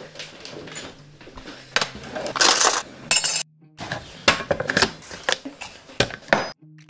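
Metal-lidded kitchen canisters being handled on a shelf and worktop: a string of sharp clinks and knocks, with a couple of short scrapes about two and a half seconds in.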